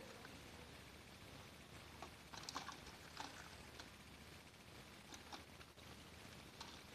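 Near silence, with a few faint clicks and taps from a remote-control toy car being handled and turned over in the hands.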